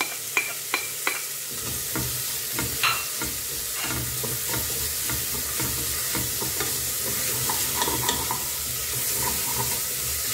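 Carrots and onions frying in hot oil in an aluminium pressure-cooker pot while a plastic spoon stirs them: a steady sizzle with the spoon scraping against the pot. In the first second or so, four quick taps as the spoon knocks the last carrots off the bowl.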